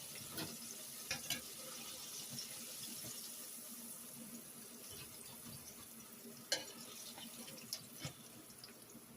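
Battered shrimp frying in hot oil: a steady sizzle that slowly dies down, with a few sharp clicks scattered through it.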